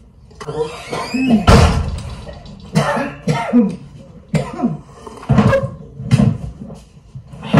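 A woman coughing and clearing her throat in several short bouts, the loudest about a second and a half in.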